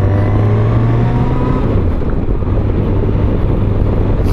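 Yamaha XJ900 Diversion's air-cooled inline-four engine accelerating to overtake, its pitch rising over the first two seconds, then running steadily under a heavy rush of wind and road noise.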